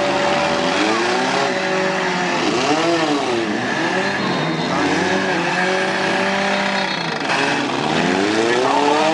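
Several compact demolition-derby car engines running hard together, revving up and falling back again and again, the pitch swooping up and down twice in big sweeps as the cars rev to ram.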